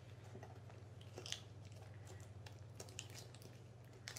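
Faint, scattered small clicks and crunches over a steady low hum.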